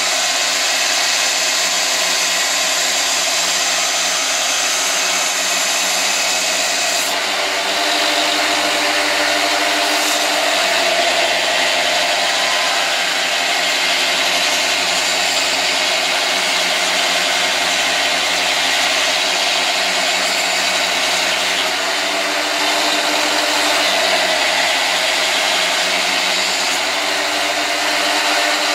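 Belt grinder running with a steel knife blade pressed against the abrasive belt: a steady grinding hiss over the even hum of the machine.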